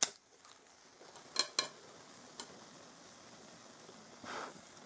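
A sharp click, then a storm match struck on the striker strip of its box: two quick scratches about a second and a half in, after which the match flares and burns. A soft puff of breath near the end.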